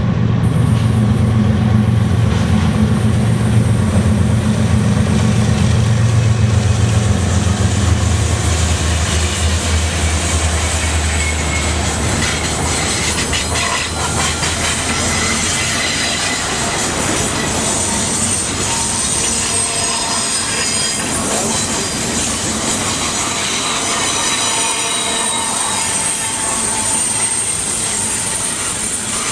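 A GE ES44DC and two EMD SD70M-2 diesel locomotives pass with a deep engine drone that fades out over the first dozen seconds. Double-stack container cars then roll by on the curve, with steady wheel and rail noise and a high-pitched wheel squeal.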